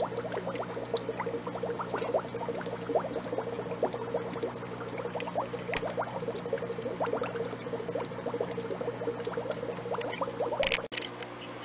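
Aquarium water bubbling and trickling, a dense patter of small bubble pops over a steady low hum. The bubbling breaks off abruptly near the end.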